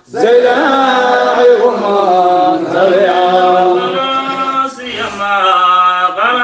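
Male chanting of a Sufi devotional qasida in Arabic, the voice held on long, slowly bending notes. It opens after a brief pause, with another short dip about five seconds in.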